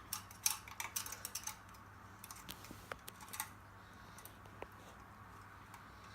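Light clicks and taps of a small object being handled, a quick run of them in the first second and a half, a few more around the third second, then only scattered faint ticks.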